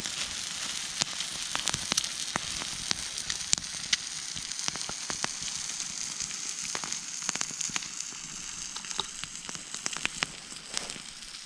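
Food frying in oil in a pan: a steady sizzle with frequent sharp spattering crackles, easing slightly near the end.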